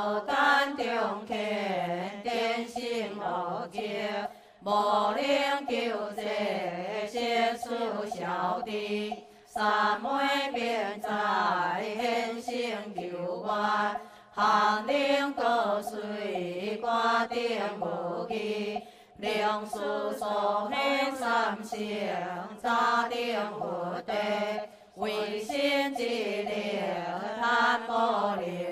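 Buddhist sutra chanting by a temple chanting group, voices in unison on a slow melodic line, addressed to Guanyin Bodhisattva. It goes in phrases of several seconds, with brief pauses for breath between them.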